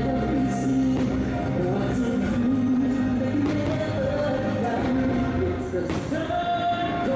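Fireworks-show soundtrack music with singing.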